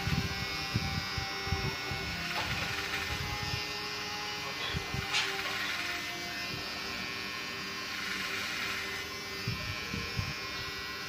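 Cordless electric hair clipper running steadily while it cuts short hair over a comb, with a brighter rasp each time the blades pass through the hair, several times.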